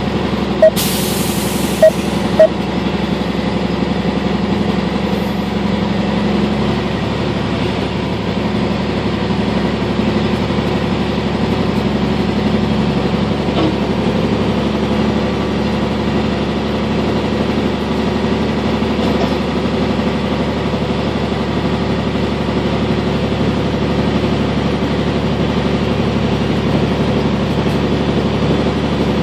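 Steady engine and road noise heard inside the cab of a truck on the move. A short hiss and a few sharp clicks sound in the first couple of seconds.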